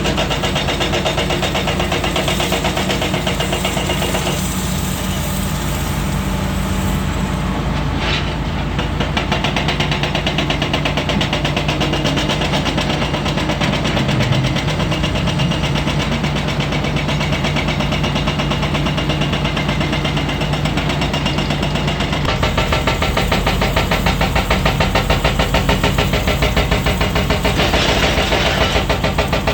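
Komatsu PC400 hydraulic excavator's diesel engine running steadily while working, its note shifting about 4 seconds in and again past the middle.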